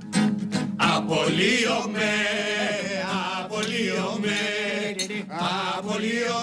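Strummed steel-string acoustic guitar, joined about a second in by several men singing a Greek song together in unison.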